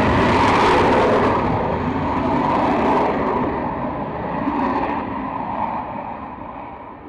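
Jet aircraft departing: loud engine noise that fades steadily as it flies away, its hiss dropping off first.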